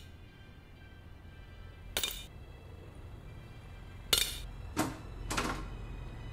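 Steel nails dropping into a tin can: four sharp metallic clinks with a short ring, one about two seconds in and the last three close together near the end, over soft background music.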